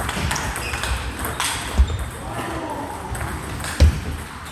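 Table tennis ball clicking off paddles and table in a rally, with two louder dull thumps, one about two seconds in and one near the end.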